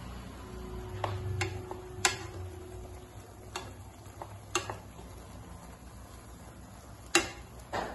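Wooden spatula knocking against the side of a steel kadai while stirring noodles in water: about seven sharp, irregularly spaced taps, the loudest near the end.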